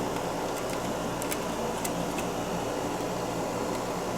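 Steady low hum and hiss of room noise, fan-like and unchanging, with a few faint high ticks.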